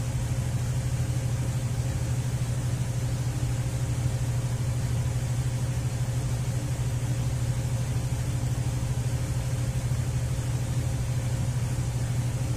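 2004 Ford Freestar's V6 engine idling steadily, a constant low hum with no change in speed.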